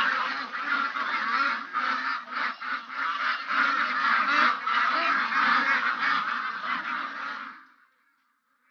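A large flock of domestic ducks quacking loudly all at once, many overlapping calls, the flock stirred up as ducks are being caught. It cuts off suddenly near the end.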